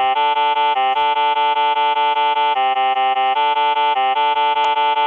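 Electronic synthesizer playing a buzzy, evenly pulsing tone rich in overtones, stepping between a few pitches about once a second.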